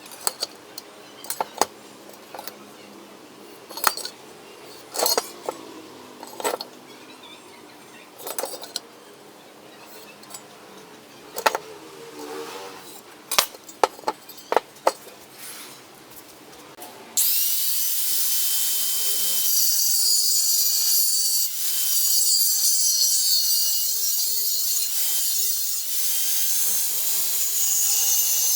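Scattered clicks and knocks of metal being handled. About 17 seconds in, a saw starts cutting into steel box bar with a loud, continuous, harsh rasping noise.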